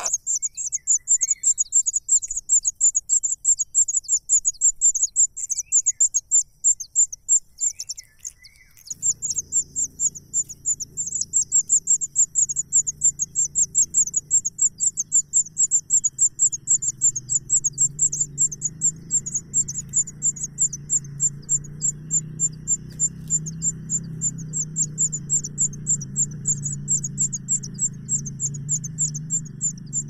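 A high-pitched chirping, repeated rapidly and evenly at about five times a second throughout. A few softer, lower chirps sound in the first several seconds, and a low steady hum comes in about nine seconds in.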